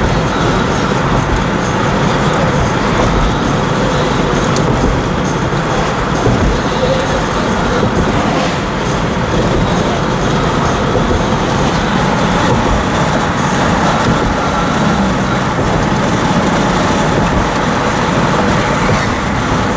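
Steady road and engine noise of a van driving at road speed, heard from inside its cabin.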